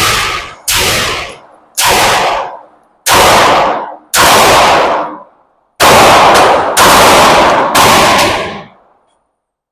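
A string of about nine pistol shots, roughly one a second and some in quick pairs, each with a ringing echo off the walls of an indoor range, stopping about a second before the end.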